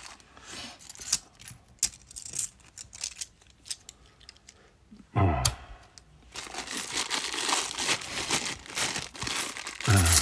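Clear plastic rollover coin bag being crinkled and torn open by hand: a dense, steady crinkling through the last four seconds. Before it come a few scattered light clicks, and a dull thump about five seconds in.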